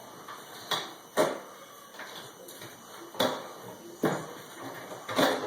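About five sharp knocks and clicks from handling a light fixture's hardware while its wiring is fed through, spread over a few seconds, the loudest about a second in.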